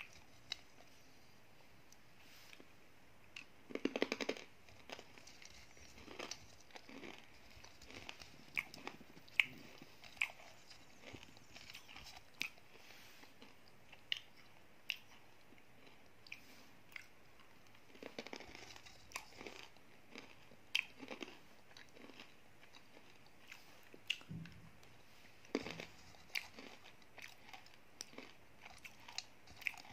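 Dry clay lumps and slate pencil pieces being bitten and chewed: irregular sharp crunches, with a few denser runs of crunching, the first about four seconds in.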